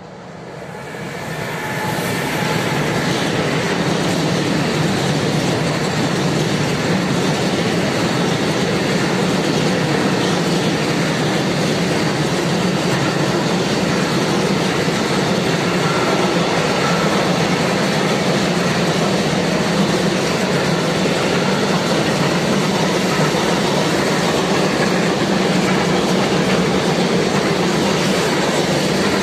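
Freight train of grain hopper wagons rolling past at speed, its wheels running on the rails. It grows louder over the first two seconds as the electric locomotive comes by, then holds a steady, loud rolling noise as the wagons pass.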